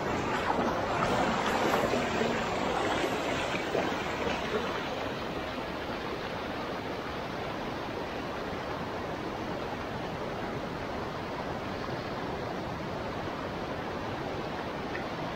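Clear, shallow mountain river rushing over stones and between boulders in small rapids. A continuous rush of water, louder for the first four or five seconds, then settling to an even rush.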